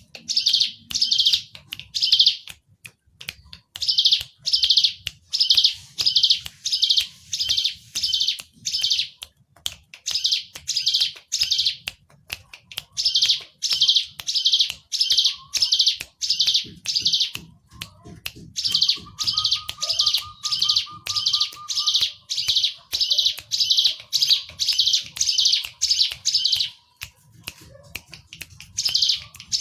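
Ciblek gunung (cigun), a prinia, singing. It gives runs of loud, evenly spaced high chirping notes, about two a second, broken by short pauses.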